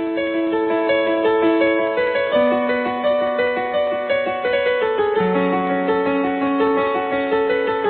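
Keyboard instrument, piano-like, playing a slow melody of held notes over long sustained bass notes, the bass changing twice.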